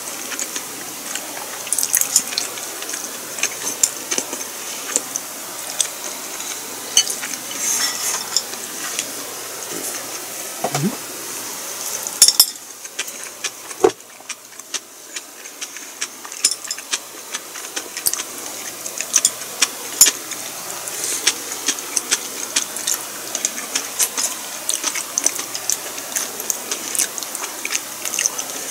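Close-up eating sounds: chewing with wet mouth noises and irregular clicks of utensils against dishes, over a steady hiss that drops away about halfway through.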